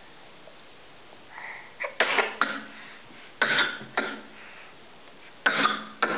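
Deliberate fake coughing: short, forced 'hack, hack' coughs in quick pairs, kept going on purpose, starting about two seconds in.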